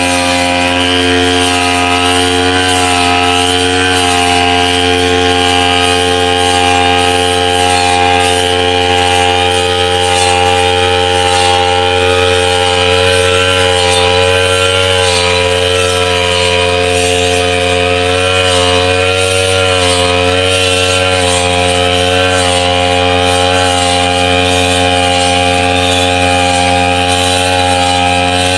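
Backpack brush cutter engine running at high speed, its pitch wavering a little as the cutting head works through tall wet grass.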